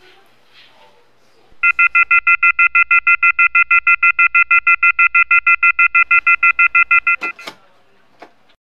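Electronic alarm clock beeping loudly in a fast, even pulse of about seven beeps a second, starting about a second and a half in. The beeping stops abruptly after about five and a half seconds, with two sharp knocks just after it.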